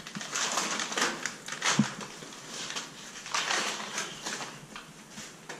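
Irregular crunching and rustling of loose debris and rubbish underfoot, in a few bursts, with a single short knock just under two seconds in.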